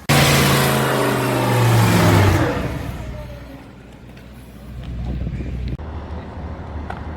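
A car engine revving hard, very loud at first and fading over a few seconds as the car pulls away. A second, quieter engine sound builds later and cuts off suddenly about two-thirds of the way in.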